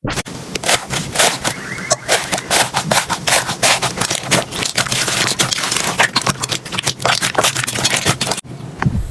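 Slime being squeezed and poked by hand, making a dense, rapid run of sticky crackles and pops. About eight seconds in it cuts off, and a quieter, softer handling sound follows.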